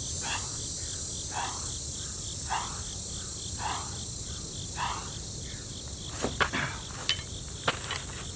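A steady high-pitched insect chorus drones throughout. Under it come short, rhythmic breathy puffs about once a second, like hard breathing through a set of push-ups. Near the end there are a few sharp thumps, like footfalls as he gets up to run.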